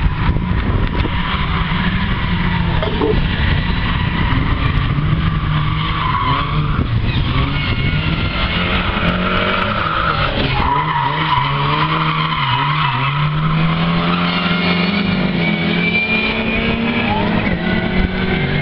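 Racing Lada and Skoda saloon cars lapping a tight circuit: engines revving up and down through the gears, with tyres squealing as the cars slide through the corners. One car passes close about ten seconds in, its engine note sweeping.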